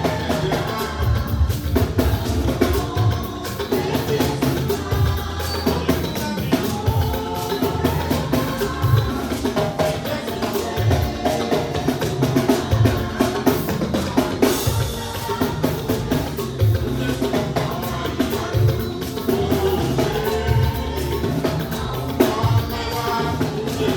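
Band music led by a drum kit: bass drum, snare and rimshots keep a steady beat under pitched instruments.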